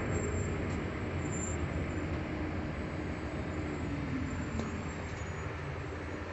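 Steady engine and road rumble heard from inside a wildland fire crew carrier truck as it rolls slowly along.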